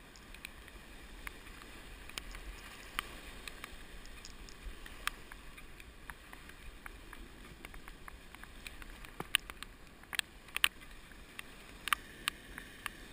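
Sea waves washing against a rocky shoreline, a low steady wash, with scattered sharp ticks and taps, several close together in the last few seconds.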